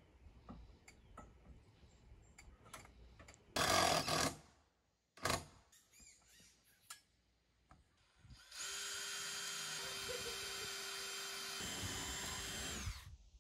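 Cordless drill/driver running, driving a screw into the sheet-metal skin of a raised vehicle roof. Two short loud bursts come about four and five seconds in, then the drill runs steadily for about four seconds and stops just before the end.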